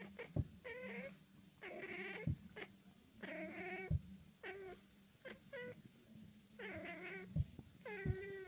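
A cat meowing over and over, about nine short meows at roughly one a second, with a few soft knocks in between.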